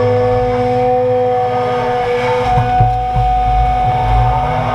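John Deere 200 excavator running under load with a low diesel rumble and a steady high hydraulic whine, its pitch shifting slightly midway, as the bucket lifts a load of mud.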